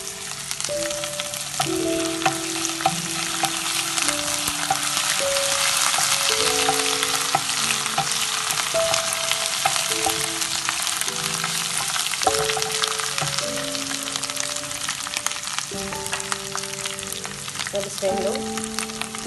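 Ginger-garlic paste and green chili paste frying in hot oil in a nonstick pan, sizzling and crackling steadily, stirred with a wooden spatula. It is being cooked until the raw smell of the paste is gone.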